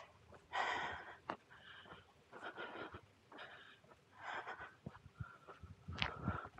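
A person breathing hard close to the microphone during a brisk walk, in a string of short noisy breaths about once a second.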